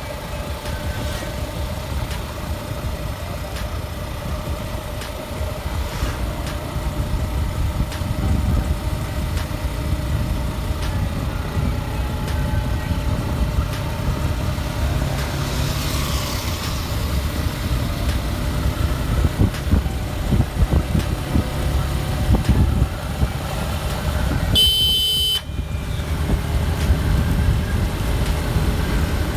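Riding a Suzuki Gixxer SF motorcycle through road traffic: its single-cylinder engine running under a steady low rumble of road and wind noise.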